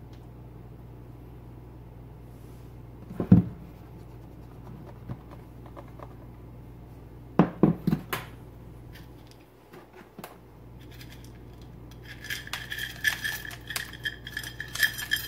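Chocolate chips rattling in a metal measuring cup as they are shaken out, the cup ringing with a steady metallic tone through the last few seconds. Earlier, a single knock and then a quick run of knocks as kitchenware is handled on the countertop.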